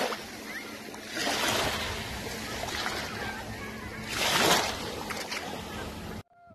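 Small waves washing in over sand at the water's edge, a steady wash that swells twice. It cuts off suddenly near the end, when a flute melody begins.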